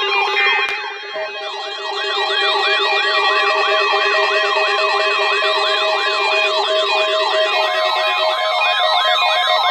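Several weather alert radios sounding their alarms at once in response to a NOAA Weather Radio Required Weekly Test: an electronic siren sweeping up and down about three times a second, layered over steady alert tones and on-off beeping. One lower tone drops out near the end.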